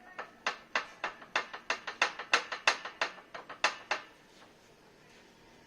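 A quick run of about fifteen sharp knocks, roughly four a second, that stops about four seconds in.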